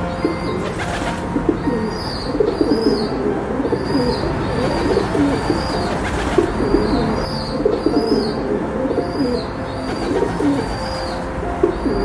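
Rock pigeons cooing, several low, throaty, wavering coos overlapping continuously, with small high chirps repeating about twice a second in the background.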